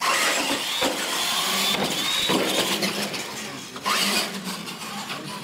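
Two radio-controlled monster trucks launching together off the start line and racing across a hard floor. A loud motor whine starts suddenly and rises and falls in pitch as they run.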